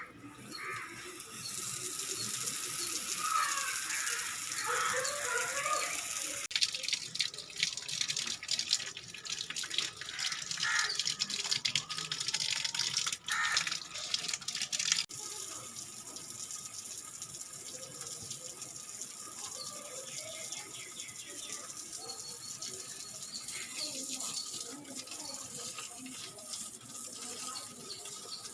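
Water running, heavier and rougher for about the first fifteen seconds, then easing to a steadier, quieter flow.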